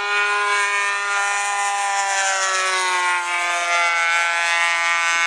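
Nitro two-stroke glow engine of a radio-controlled Sky Bolt biplane running at high throttle in flight, a steady whine whose pitch drops a little about halfway through.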